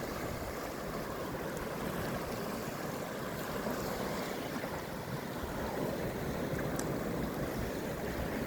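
Steady rush of ocean surf with wind on the microphone.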